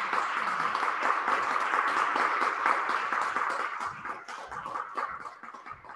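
A small group of people applauding: dense clapping that thins to a few separate claps from about four seconds in and fades away.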